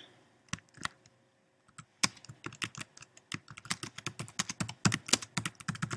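Typing on a computer keyboard: two single keystrokes, a short pause, then a fast, steady run of keystrokes from about two seconds in.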